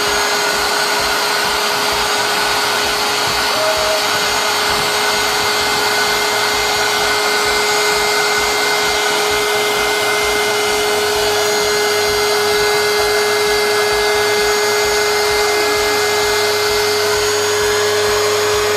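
Handheld electric air pump running steadily with a constant whine as it blows up a flat vinyl inflatable tyre.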